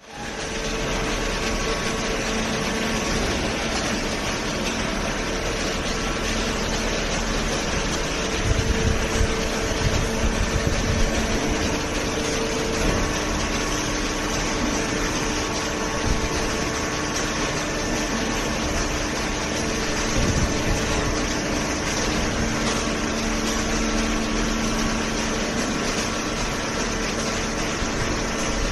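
Hydraulic baler's electric motor and pump running steadily, a continuous hum with a couple of held tones, with some irregular low knocks a third of the way in.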